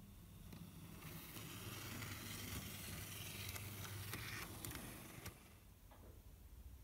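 N gauge model electric locomotive (Fleischmann E03-001) running past on the track: the faint whir of its small motor and wheels on the rails swells about a second in and eases off after about five seconds, with a few light clicks in the middle.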